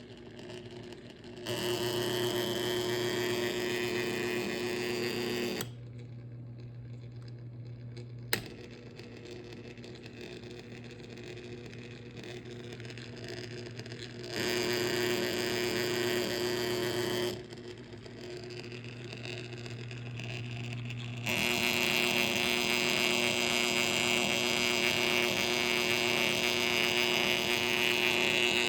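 Motor running with a steady hum and a rough, rushing bearing noise that comes and goes, loudest in stretches starting about 1.5 s in, around the middle, and from about three quarters through on: the sound of bad bearings.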